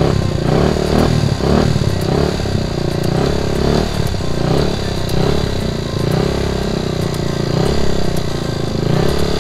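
Freshly rebuilt Honda Super Cub C102 engine, a small four-stroke single, running steadily with its speed wavering slightly.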